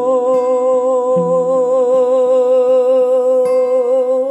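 A man's singing voice holding one long note with a steady vibrato, with acoustic guitar notes ringing softly underneath.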